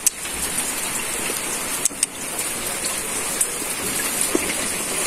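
Steady rain falling as an even hiss, with a couple of sharp clicks about two seconds in.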